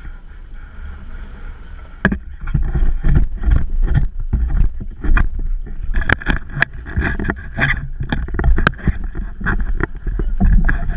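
Water splashing and a run of sharp, irregular knocks as a gaff pole carrying the camera goes into the sea and gaffs a small tuna, which thrashes on the hook. Under it is a steady low rumble of wind and water on the microphone, and that rumble alone fills the first two seconds.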